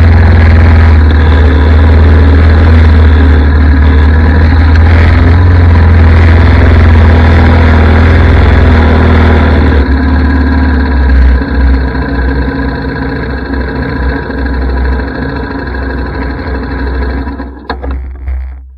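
Single-cylinder four-stroke engine of a Yamaha ATV running, dropping to a lower idle about ten seconds in, then shut off just before the end.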